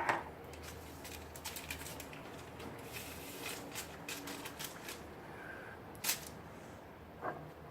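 Faint scattered clicks and light rustling of small handling sounds, with a sharper click about six seconds in and a soft knock shortly before the end.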